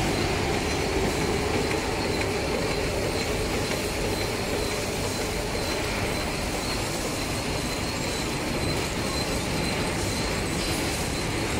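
Automatic wet-wipe folding and three-side sealing packing machine running: a steady mechanical clatter and hum with a faint high whine.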